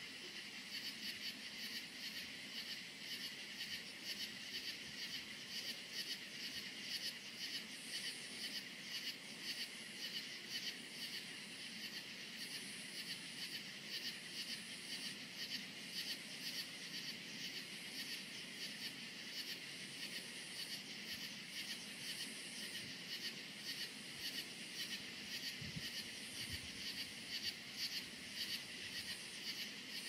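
Crickets chirping in a steady chorus of even, pulsing chirps, with a higher insect buzz that comes and goes.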